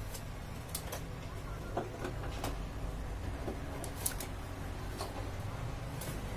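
Flat-screen TV being lifted and set against its metal wall bracket: scattered light clicks and knocks, the sharpest about four seconds in, over a steady low hum.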